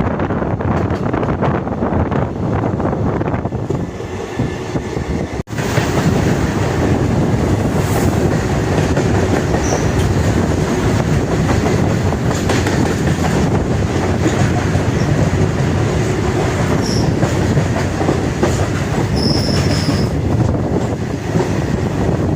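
Indian Railways passenger train running along the track: steady wheel-and-rail rumble with clickety-clack and a few short, high wheel squeals. The sound breaks off for an instant about five seconds in and comes back louder.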